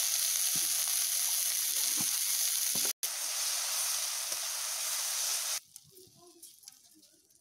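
Tomatoes and spice paste sizzling hard in a hot kadai, stirred with a metal spatula, with a few light knocks. The sizzle drops out for an instant about three seconds in and cuts off abruptly about two seconds before the end, leaving only faint small clicks.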